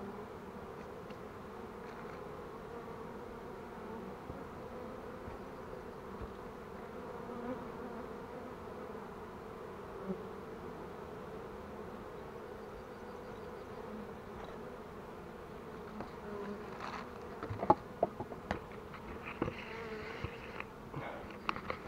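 Honeybees of a small caught swarm buzzing steadily around a nucleus box, regrouping and settling after being moved into it. A few clicks and knocks near the end.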